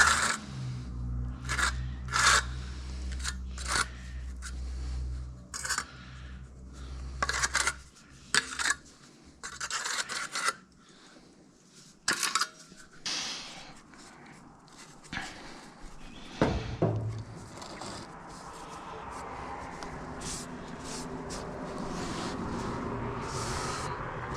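Trowel scraping and spreading tile adhesive, combing it onto a tile with a notched trowel: a series of short, irregular scraping strokes, giving way to a softer, steadier rubbing noise for the last several seconds.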